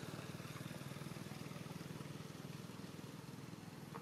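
An engine running steadily out of view, heard as a low, fast, even pulsing hum.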